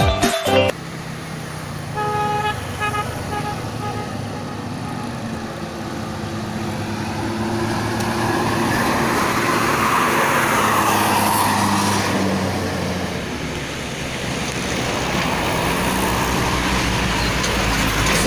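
A bus horn gives one short toot about two seconds in, over the steady hum of a large bus engine. The bus comes closer and passes, its engine and road noise swelling to a peak about ten seconds in, easing off, then building again near the end.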